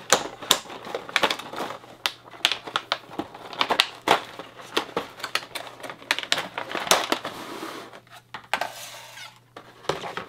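Thin clear plastic blister packaging crackling and clicking as it is handled and pried apart, a rapid, irregular run of sharp crinkles and snaps that thins out near the end.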